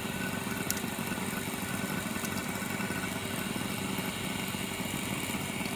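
Steady hum of the repair bench's electric motor machinery, most likely the vacuum pump running, with two faint clicks.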